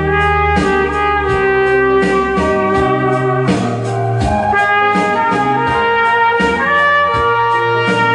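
Trumpet playing a melody in long held notes over an accompaniment with a bass line and a steady beat.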